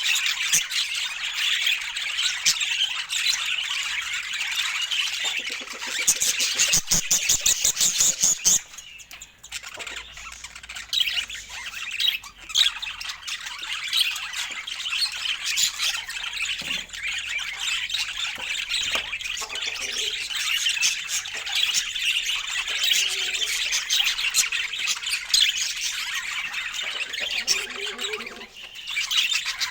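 Budgerigars chattering and chirping in a steady, busy warble, with a run of rapid clicks about six seconds in and a short lull soon after.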